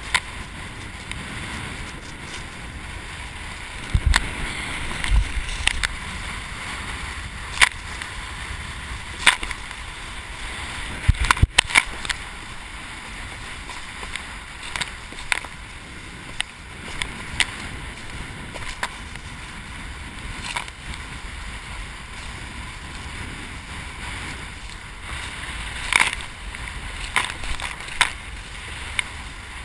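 Kiteboard planing over choppy water: a steady rush of water with sharp slaps every second or two as the board hits the chop.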